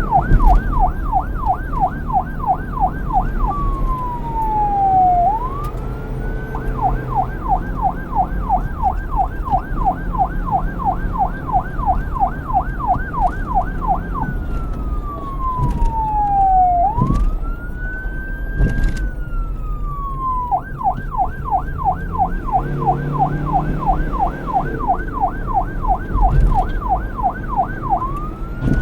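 Police siren cycling between a fast yelp, about five rapid up-and-down sweeps a second, and slower single rising and falling wails, three times over. A steady low rumble of engine and traffic runs underneath.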